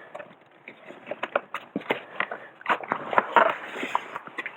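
Irregular rustling and clicking of loose wiring and plastic interior trim being handled as the wires are tucked up behind the trim.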